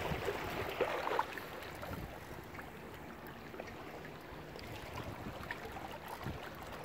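Steady wash of moving water and wind.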